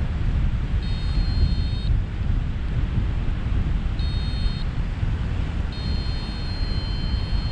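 Airflow rushing over the microphone of a paraglider in flight, a steady low roar. A high steady electronic tone sounds three times over it: for about a second near the start, briefly at four seconds, and again for about two seconds near the end.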